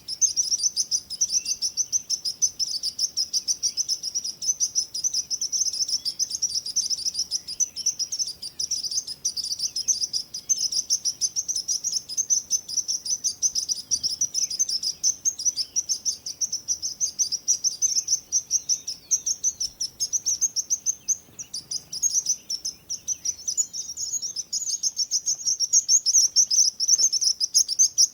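Small birds chirping continuously in a dense chorus of rapid, high-pitched chirps.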